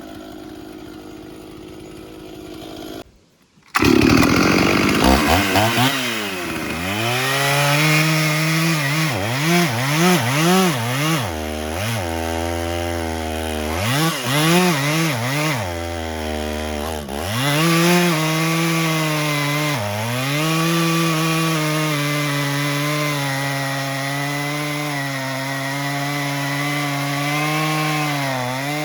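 Stihl 044 70 cc two-stroke chainsaw cutting timber under full throttle, starting after a short break about three seconds in. Through the middle its pitch drops sharply again and again as the engine bogs under load, which the cutters put down to the saw's aggressive bumper dogs grabbing the wood. Near the end it holds a steadier note with only occasional dips.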